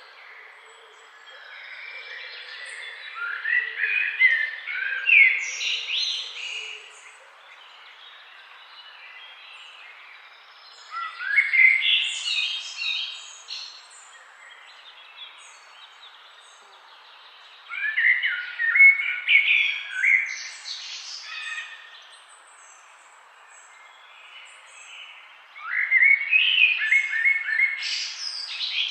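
A songbird singing: four phrases of quick, varied whistled notes, each two to three seconds long and repeated about every seven to eight seconds, over a faint steady hiss.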